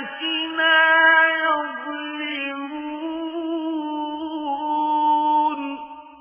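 Quran recitation: one voice chanting a slow melodic phrase in long held, drawn-out notes with gentle turns in pitch, dying away near the end.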